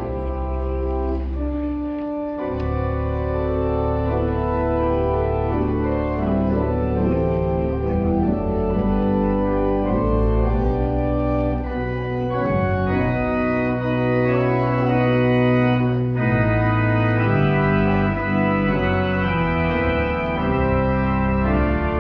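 Organ music: slow, sustained chords held over steady low bass notes, the notes staying full until each chord change.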